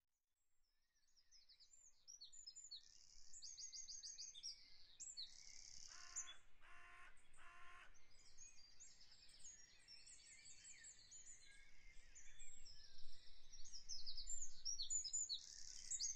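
Birds chirping faintly in quick, high trills, starting about two seconds in, with three short, lower calls in a row about six to eight seconds in.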